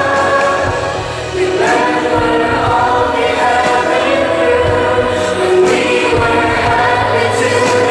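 A choir singing a slow song in long held notes over instrumental backing, played through a stage sound system.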